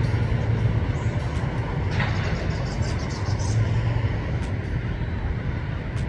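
A steady low rumble of a vehicle engine running close by, with a noisy hiss over it.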